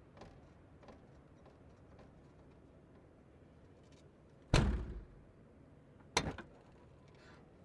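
Car trunk lid shut with a heavy thud about four and a half seconds in, then a second, shorter knock a second and a half later, after a few faint handling clicks.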